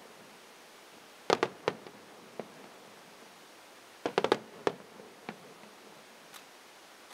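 Firework shells bursting in a rapid volley: three or four sharp bangs about a second in, a single one shortly after, then a second cluster of about five bangs around four seconds in, with a few fainter pops after it.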